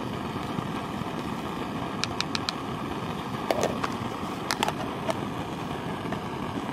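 A plastic spoon stirring rehydrated chicken curry in a plastic bowl, knocking against the bowl in a few light clicks, over a steady rushing noise.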